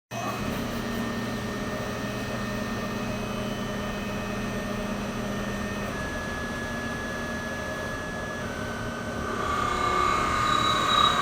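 Tormach lathe running with a steady whine, the pitch stepping a couple of times. About nine seconds in, a louder high ringing squeal builds as the tool cuts, from a cut that is far too deep.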